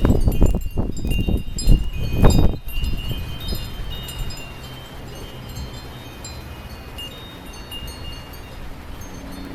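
Wind chimes ringing steadily in a windstorm, many overlapping high notes. Strong gusts buffet the microphone with a low rumble for the first few seconds, then the wind eases and the chimes keep ringing over a quieter wind.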